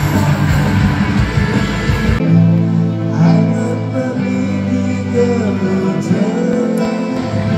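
Live band music on a concert stage, recorded from the crowd. About two seconds in it cuts to another passage with guitar and a singing voice.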